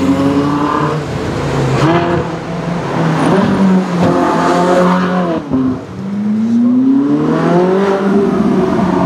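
Ferrari 458 V8 engines accelerating past, the pitch climbing with the revs. There is a break about two seconds in, a sharp drop just past halfway, and then another long climb.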